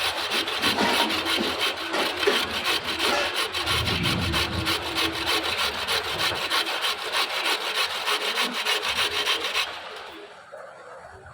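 Carrots being grated by hand on a metal grater: quick, even rasping strokes that stop shortly before the end.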